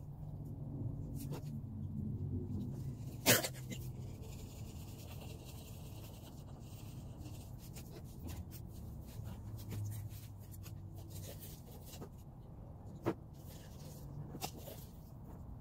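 Black plastic nursery pots handled and set down on a plastic table: a sharp plastic knock about three seconds in and a smaller one near the end, with light scraping and ticking and a low hum underneath.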